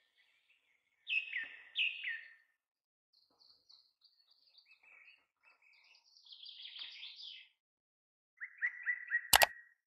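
Small birds chirping and twittering: two falling chirps about a second in, a scatter of twittering in the middle, and a quick run of repeated chirps near the end, cut by a single sharp click just before the end.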